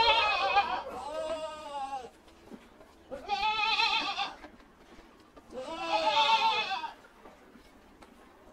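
Domestic goats bleating: four wavering bleats, each about a second long, with short pauses between them.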